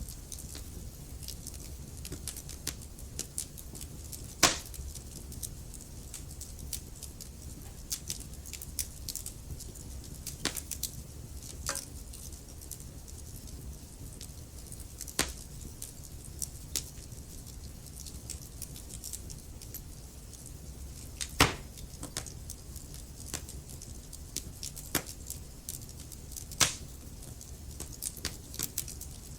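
Wood fire crackling in a fireplace: irregular sharp pops and snaps over a low, steady rumble. The loudest pops come about four seconds in, about two-thirds of the way through, and near the end.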